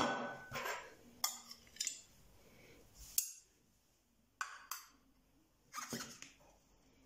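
Metal cake server and fork clinking and scraping against a ceramic plate and a glass baking dish: a sharp clink at the start, then a handful of short taps and scrapes.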